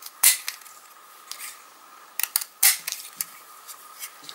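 Handheld craft flower punch clicking as it cuts flowers out of paper: two sharp snaps about two and a half seconds apart, with fainter clicks between.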